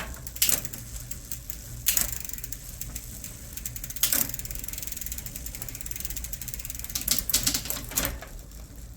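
Kent Flexor 29 mountain bike drivetrain being run through the rear gears to test a newly replaced shifter cable: rapid ticking of the chain and rear hub, with a handful of louder clunks as the chain shifts across the rear sprockets.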